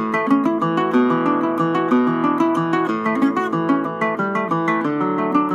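Requinto jarocho picked with a long plectrum, playing a fast son jarocho melody as a quick run of single plucked notes.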